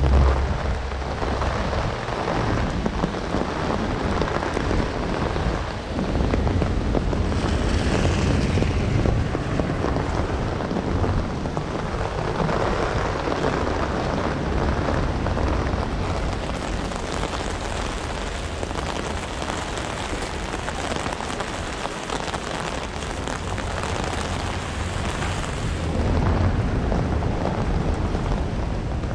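Heavy rain and strong wind: a steady, loud rushing noise with a low rumble, swelling slightly now and then.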